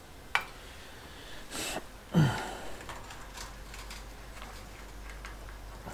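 Metal machine parts being handled and fitted by hand: a sharp click, then a short scrape and a louder knock about two seconds in, with small clicks after.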